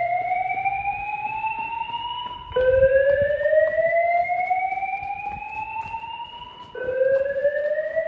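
Fire alarm voice evacuation speaker sounding a slow whoop: a tone that rises steadily in pitch for about four seconds, then drops back and starts rising again. This is the evacuation signal.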